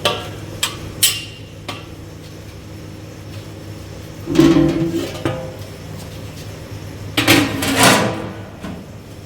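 Background guitar music, with a few light clicks early on and two louder clanks of cookware about four and seven seconds in.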